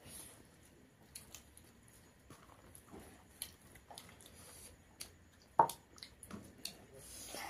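Eating by hand at close range: chewing, wet mouth smacks and fingers squishing rice on the plate, with scattered small clicks. A sharper click comes about five and a half seconds in.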